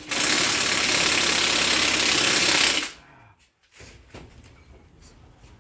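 Impact wrench hammering on a suspension fastener in one steady run of about three seconds, then stopping abruptly. Faint tool clicks follow.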